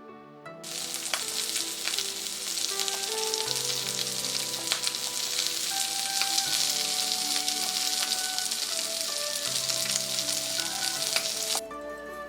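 Wood campfire crackling and hissing, starting about half a second in and cutting off abruptly about a second before the end, over soft background music.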